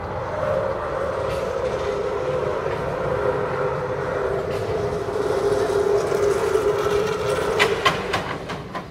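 Steel roller coaster train running along its tubular track: a steady rolling hum that slowly sinks in pitch, with several sharp clacks near the end as the sound falls away.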